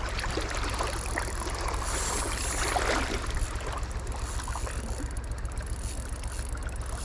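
Steady rush of flowing creek water, a little louder about three seconds in.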